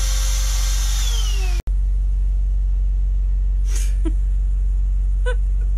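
Handheld vacuum motor whining steadily, then winding down and stopping about a second and a half in, used to suck up flies. A low steady rumble runs underneath throughout, with a short knock and a brief squeak near the end.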